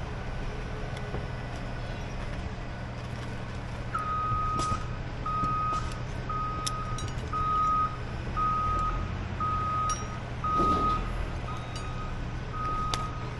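A truck's back-up alarm starts beeping about four seconds in, one beep roughly every second, over the steady low rumble of a running truck engine, with a few sharp knocks.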